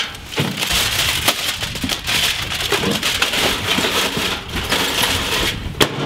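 Aluminium foil being crumpled and scrunched by hand: a dense, steady crinkling crackle. A single sharp click comes near the end.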